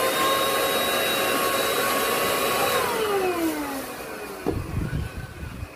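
Small electric air pump motor running with a steady whine, then switched off about three seconds in and winding down with a falling pitch; a few low bumps follow near the end.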